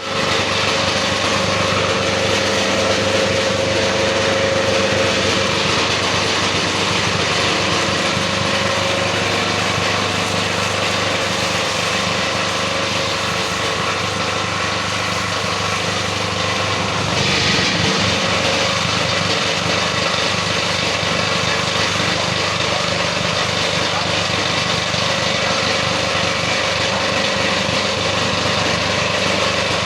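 Plastic scrap grinder machine running steadily, its motor humming under a loud mechanical hiss, which turns brighter and hissier a little past halfway.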